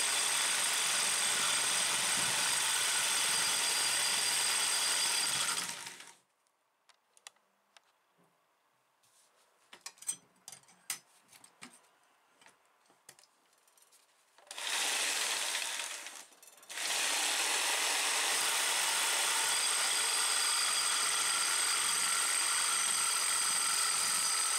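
Jigsaw running a thin hacksaw blade in a handled guide, sawing through a 15 × 30 mm rectangular metal tube, with the overlong, untrimmed blade rattling. About six seconds in it stops for several seconds with a few light handling clicks, runs briefly, then runs steadily again.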